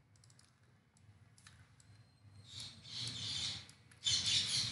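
Computer mouse being worked: a few faint clicks, then two stretches of rapid, high ticking of about a second each, like the scroll wheel being spun to zoom the view.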